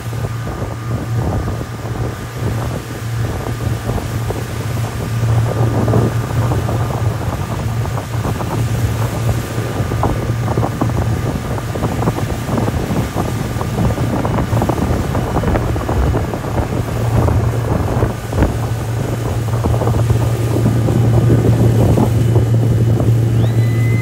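Motorboat engine running steadily at speed while towing, with wind buffeting the microphone and the rush of water from the wake.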